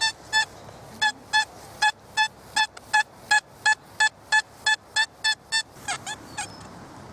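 Metal detector beeping: a steady run of short, identical high tones, about three a second, that stops about five and a half seconds in. The detector is sounding off over a buried metal target.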